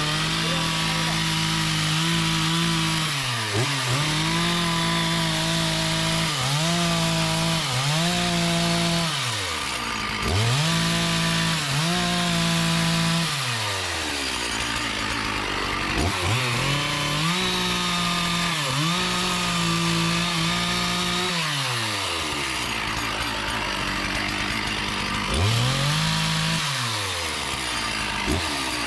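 Two-stroke chainsaw cutting into a teak tree, revved up to full speed and let back down to idle over and over, about eight or nine times, with a longer idle about three-quarters of the way through.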